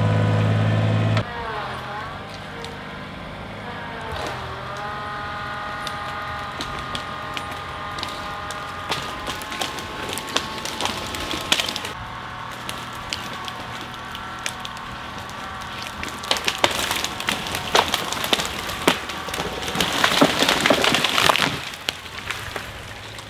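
A white pine coming down: its trunk and branches crack and splinter, building to a crash of breaking limbs about 20 seconds in, over a small engine running steadily whose pitch dips and recovers twice early on.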